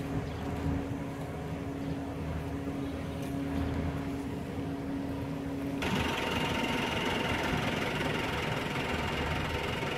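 Steady engine drone of a 16-axle ADDrive heavy-haul transporter moving a massive load, with a constant hum. About six seconds in, the sound abruptly turns louder and harsher, with a thin high whine over it.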